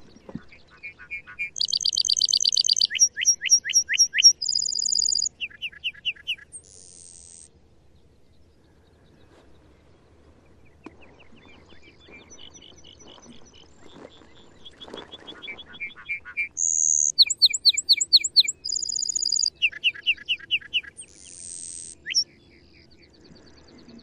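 Male lark bunting singing two long songs, each a string of varied phrases of rapid trills and quickly repeated notes, ending in a buzzy note. The second song starts faint and turns loud about two-thirds of the way in.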